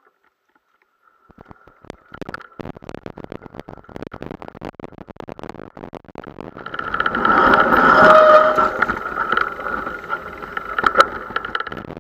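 Mountain bikes in a bunch rolling off together: a dense run of clicks and rattles from chains and bike gear, swelling after about six seconds into a louder rush of noise with a steady high whine, then easing off.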